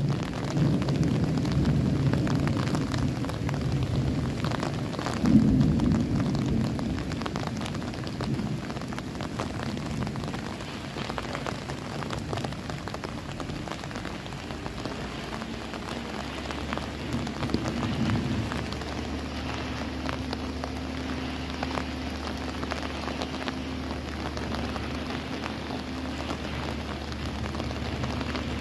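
Steady rain falling, with low rolling rumbles of thunder in the first ten seconds or so, the strongest about five seconds in, and another brief rumble near the two-thirds mark.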